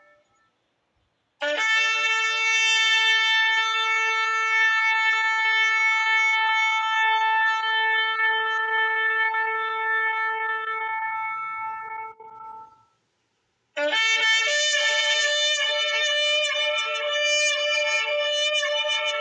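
Shofar (ram's horn) blown in two long blasts. The first is a steady held note of about eleven seconds that tails off at the end. After a short pause, a second, wavering blast begins and carries on.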